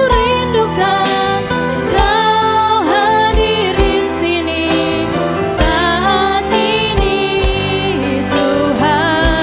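Live worship band playing a slow Indonesian worship song: two female vocalists sing the melody over keyboard chords, bass, guitar and electronic drums keeping a steady slow beat.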